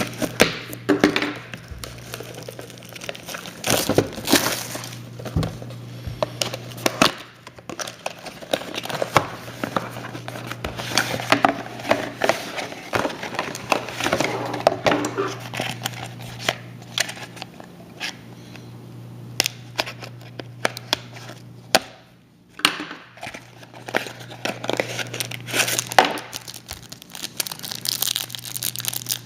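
Plastic wrapping on a box of trading cards and its packs crinkling and tearing as they are opened, with irregular rustles and clicks, over a steady low hum.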